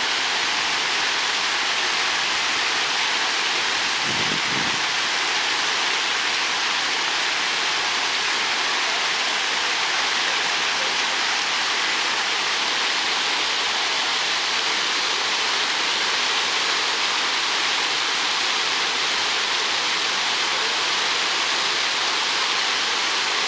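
Water fountain jets splashing down into the pool: a steady, even rush of falling water.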